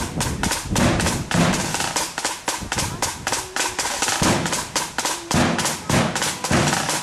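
Side drums of a loyalist flute band beating fast, dense rolls and strikes, with deeper drum beats thudding underneath.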